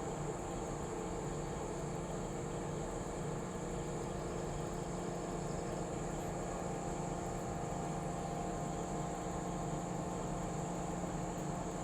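A large truck crane's engine running steadily at constant speed, a droning hum with a steady high whine above it.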